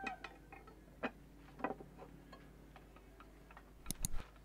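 Scattered light clicks and taps from a rusty steel knife blade being handled, then two sharper knocks near the end as it is set down on a wooden bench.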